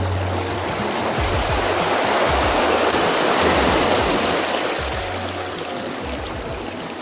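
Sea waves washing over shore rocks, swelling to a surge about halfway through and then easing off, under background music with a low bass line.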